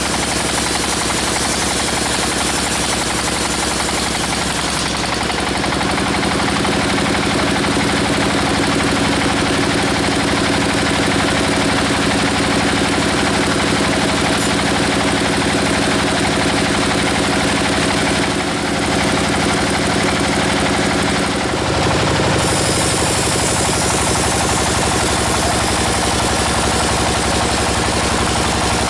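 Sawmill machinery running loud and steady, with a rapid rattling engine-like drone whose pitch changes about five seconds in and again about twenty-two seconds in.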